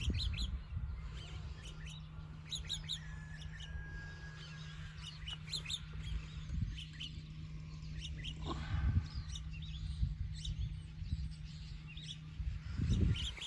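Small birds chirping and twittering in many short, high calls, over a steady low hum, with a few low rumbles.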